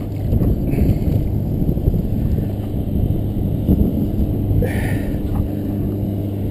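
Low rumbling wind noise on a body-worn camera's microphone, with a steady low hum underneath from about two seconds in and a short hiss about five seconds in.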